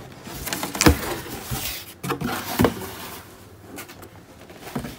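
Cardboard boxes being handled on a table: a black shoe box and a brown shipping box knocking and rustling against each other and the tabletop. The loudest knock comes about a second in and another about two and a half seconds in.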